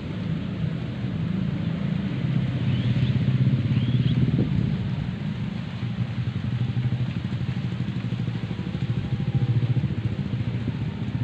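A small engine running steadily nearby, a low drone with fast even pulsing. A few brief high chirps sound about three to four seconds in.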